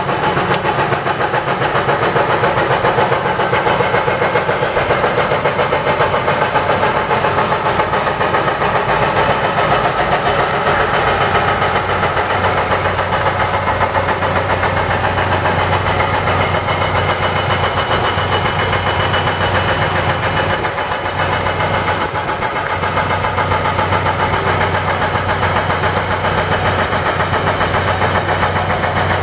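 Heavy construction machinery's diesel engine running steadily and loudly, with a fine even beat.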